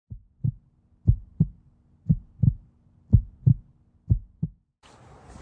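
Heartbeat sound effect: five slow double thumps, lub-dub, about one a second, which stop just before the end.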